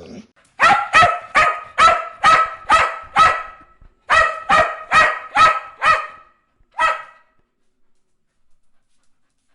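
A dog barking repeatedly, about two barks a second: seven barks, a short pause, five more, and a single last bark about seven seconds in.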